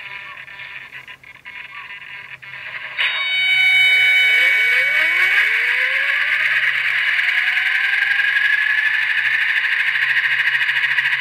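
Blade Nano S3 micro RC helicopter's electric motor and rotor whining. About three seconds in it gets suddenly louder and rises in pitch as the helicopter throttles up and lifts off, then holds a steady high whine.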